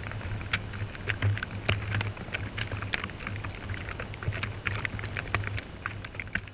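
Underwater ambience: dense, irregular crackling clicks over a steady low hum.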